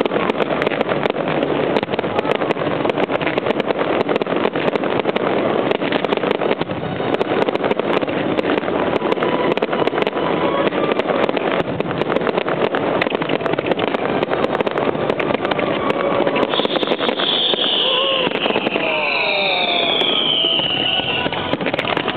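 Aerial fireworks display: a dense, continuous run of shells bursting and crackling, with several falling whistles about three-quarters of the way through.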